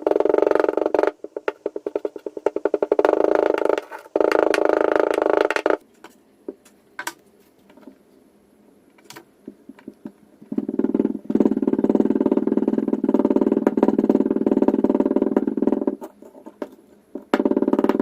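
Kinetic sand being cut and crushed, a dense crunchy crackle of many tiny grains. It comes in bursts of a few seconds, separated by a lull of scattered single clicks from about six to ten seconds in.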